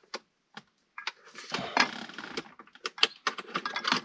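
Handling noise from small hard objects: scattered clicks, a denser jangling rattle about a second and a half in, then more quick clicks.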